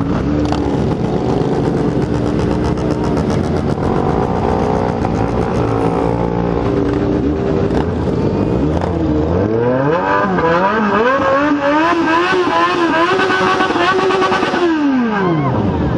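Motorcycle engines running in a group, several steady engine notes at once. From about nine seconds in, an engine is revved up and down repeatedly. Near the end its pitch drops away steeply.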